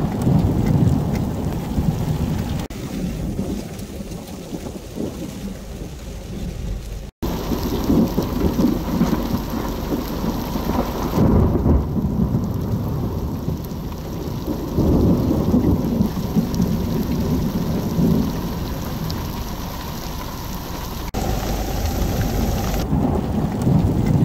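Heavy rain pouring onto a road and stony ground, with low rolls of thunder swelling and fading several times.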